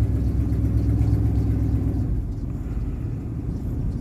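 Steady low rumble of an idling engine, its low hum easing somewhat about two seconds in.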